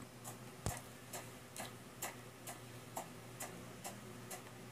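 Faint, even ticking, about two sharp ticks a second, with one louder click a little under a second in, over a low steady hum.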